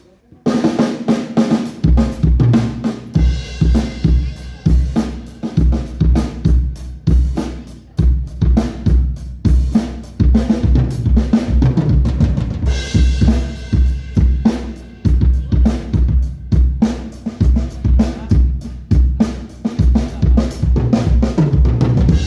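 Drum kit played for a sound check: a steady groove of kick drum, snare and cymbals, the kick coming in about two seconds in, and the playing stops at the end.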